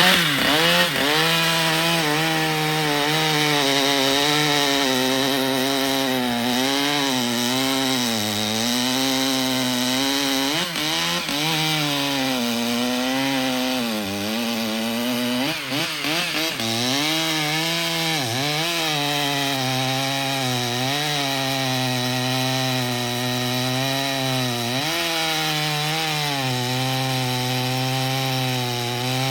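Stihl two-stroke chainsaw revving up at the start, then cutting wood under load, its engine pitch dipping and recovering again and again as the chain bites.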